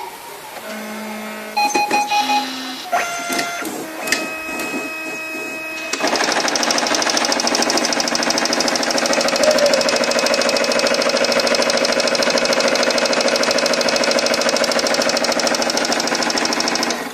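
Brother MFC-J430W flatbed scanner mechanism running. For its first few seconds it gives short separate motor tones and clicks. Then, about six seconds in, a loud steady machine whine starts, runs for some eleven seconds and stops just before the end, while the green-lit scan bar moves under the glass.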